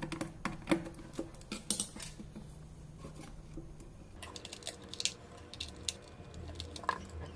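Scattered small clicks, taps and light metallic clinks of small parts being handled at a workbench, over a faint low steady hum.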